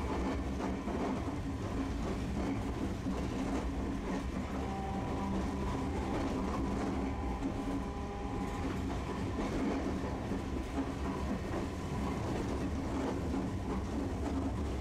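Tosaden streetcar running along its track: a steady low rumble of wheels and running gear, with a faint high hum in the middle stretch.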